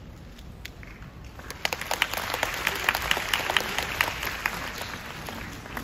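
Audience applauding. The clapping swells about one and a half seconds in and thins out near the end.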